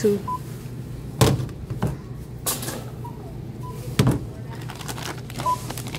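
Checkout barcode scanner giving short single beeps, about four in all, as items are scanned, with a few sharp knocks and rustles of goods being handled on the counter; the loudest knock is near the middle.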